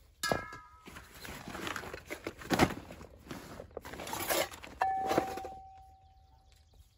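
Metal drink cans knocking together as they are handled and set down. The first knock has a short metallic ring, and a later knock leaves one clear ringing note that fades over about two seconds. Between them comes rustling and knocking of tent groundsheet and clothing, with a sharp knock near the middle.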